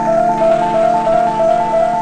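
Background music on keys: a quick figure alternating between two notes over held chords.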